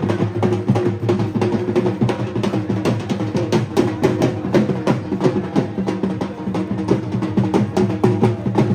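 Music with fast, continuous drumming over sustained low tones.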